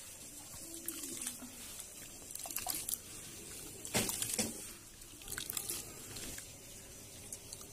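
Hands squishing and swishing wet grain in water in a plastic colander, with scattered splashes and drips. The loudest splashes come about four seconds in.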